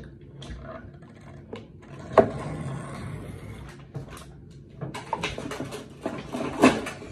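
Small objects being handled and set down on a bathroom counter: a sharp knock about two seconds in and another near the end, with scattered clicks and rustling between.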